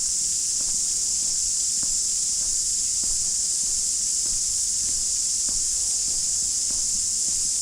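Steady, high-pitched insect chorus, typical of summer cicadas, running without a break. Footsteps on the path tick faintly underneath, about twice a second.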